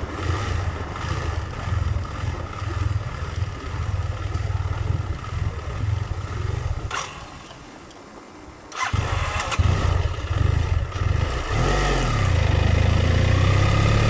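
BMW F700GS parallel-twin engine idling unevenly, then dying about six and a half seconds in. After a two-second lull it starts again near the ninth second, revs briefly and settles into a steady run. This is the bike's unstable idle and stalling, a fault later traced to a faulty throttle position sensor.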